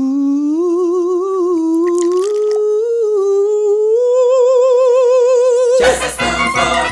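A single voice humming one long wavering note with vibrato, unaccompanied, climbing in pitch in small steps. Near the end the full backing music cuts in suddenly.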